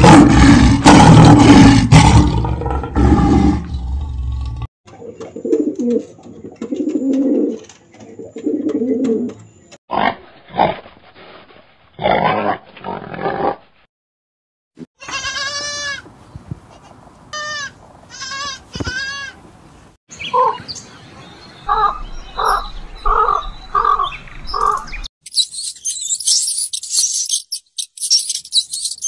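A string of different animal calls cut one after another. It opens with a loud, deep roar lasting about four seconds, then moves through several short runs of repeated calls and bird calls, and ends with high, rapid chirping.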